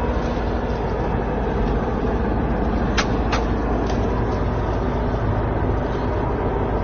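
A steady, loud rumbling noise, heaviest in the low end, with two sharp knocks about three seconds in.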